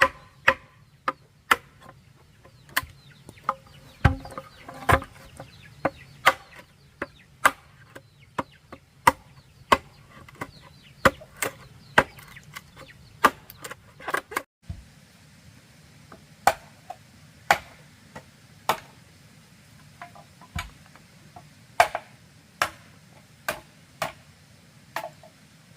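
Repeated sharp chopping blows, roughly one a second, from a hand tool cutting bamboo, with a short break about halfway through.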